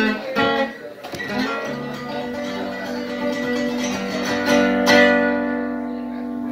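Solo acoustic guitar: a few picked notes, then a strummed chord left ringing and struck again more loudly about halfway through, as the song's closing chords.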